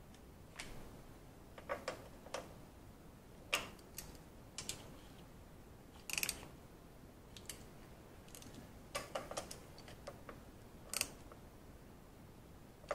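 Faint, irregular metallic clicks and clinks of a hand wrench as the valve cover bolts are tightened down, a click or a short cluster of clicks every second or so.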